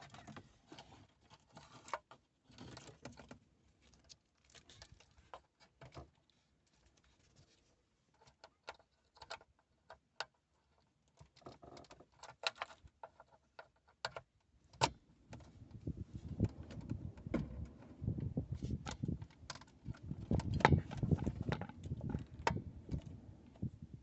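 Handling noise from a car stereo wiring harness and connector being worked into the head unit: scattered light plastic clicks and taps, then from about halfway a busier run of clicks and rattles over rustling wires, louder than before.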